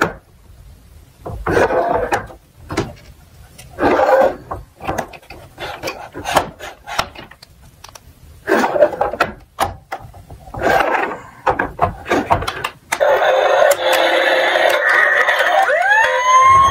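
Small toy cars clicking and clattering in short, irregular bursts, as on a plastic slope track. About three-quarters of the way through a steady electronic hiss starts, and near the end a toy siren begins wailing upward.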